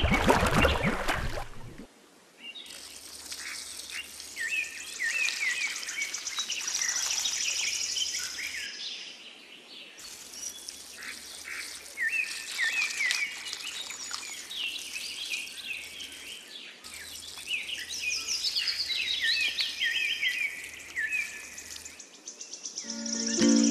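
Small birds chirping and twittering, many short calls overlapping in an outdoor birdsong ambience. A loud rush of noise fills the first two seconds before the birdsong starts.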